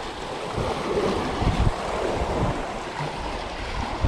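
Small waves washing and splashing against the rocks of a seaside jetty, with gusts of wind buffeting the microphone.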